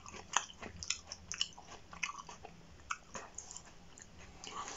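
A person chewing a mouthful of pesto-stuffed tomato skin with the mouth closed, making irregular short, wet mouth clicks.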